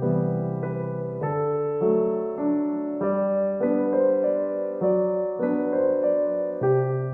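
Background music: soft piano or electric piano playing gentle repeating chords at an even pace.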